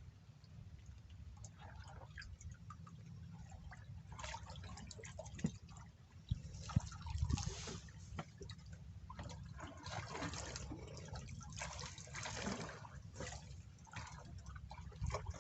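Water splashing and dripping in irregular bursts, with scattered small clicks over a steady low rumble.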